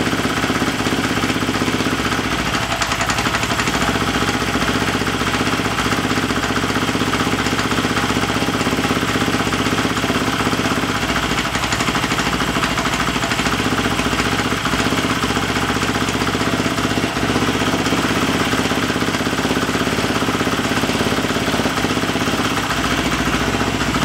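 Husqvarna FE 366 (an FE 350 bored out) single-cylinder four-stroke dirt bike engine idling steadily on its first run after a complete rebuild.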